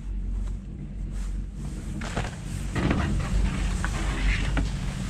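Skis touching down on packed snow at a chairlift's unloading ramp and scraping and sliding over it, starting about two seconds in, over a steady low rumble.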